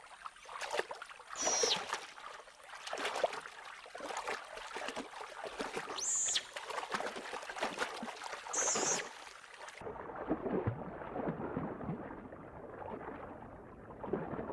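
Giant otters splashing in shallow river water, with three short high-pitched squeals. About ten seconds in the sound turns muffled and bubbling, heard underwater.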